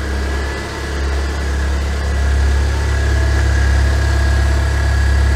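BMW E36 316i's four-cylinder engine idling steadily, heard from the open engine bay.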